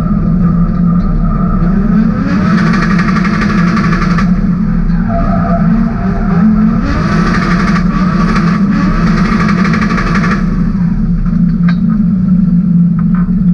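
The BMW E30's M50B28 inline-six engine, heard from inside the stripped cabin, revving hard with its pitch rising and falling. It has two louder full-throttle spells, about two to four seconds in and again from about seven to ten seconds, while the rear tyres spin and smoke.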